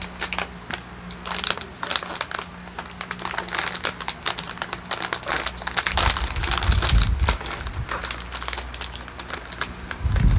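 A crinkly plastic snack bag of Chippy corn chips being handled and opened, crackling and rustling throughout. There are dull low bumps about six seconds in and again near the end.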